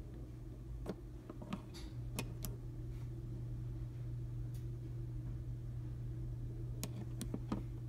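A few light, scattered clicks and taps, over a steady low hum.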